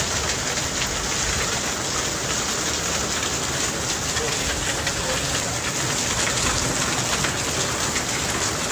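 Heavy rain pouring steadily in a storm, with wind rumbling on the microphone.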